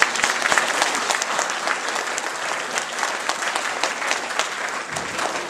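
Audience applauding, a dense stretch of clapping from many hands.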